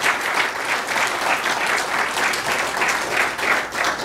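Congregation applauding steadily, many hands clapping together.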